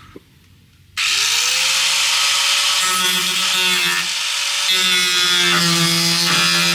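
Corded angle grinder switched on about a second in, its whine rising as it spins up, then running steadily as it cuts into a steel strut of the van's side wall.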